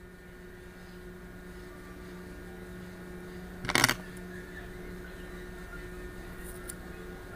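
Steady hum of an electric fan, with one short sharp noise about four seconds in as hair is handled and cut with scissors.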